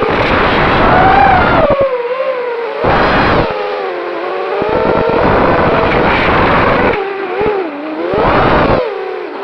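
FPV racing quadcopter's four brushless motors (T-Motor F60) and tri-blade props whining, the pitch rising and falling with throttle changes. Bouts of wind noise roar over the microphone in strong gusts.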